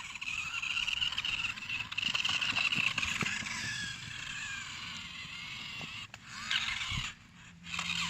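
Electric remote-control toy car's motor and gearbox whining as it drives, steady for about six seconds, then two short bursts as it is driven again in quick stabs.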